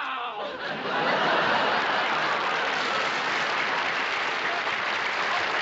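Studio audience applauding. The clapping swells about a second in and then holds steady.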